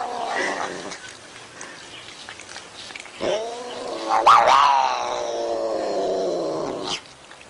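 Domestic cat yowling: the end of one call at the start, then one long, drawn-out yowl from about three seconds in that climbs briefly, sinks slowly in pitch and cuts off near the end.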